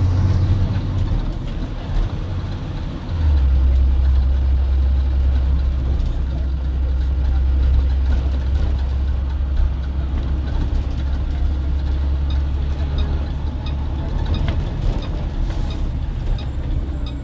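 2016 IC CE school bus driving, its engine and drivetrain drone heard from the driver's area. The low drone drops in pitch and grows louder about three seconds in. A light, regular ticking joins near the end.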